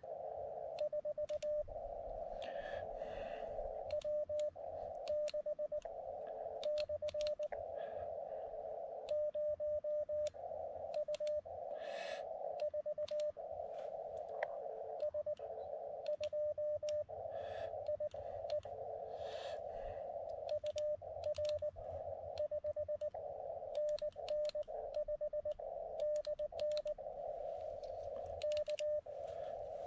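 Morse code (CW) from a portable amateur radio transceiver: a single tone at about 600 Hz keyed on and off in quick dots and dashes, with hiss in the same narrow pitch range between characters and scattered short clicks.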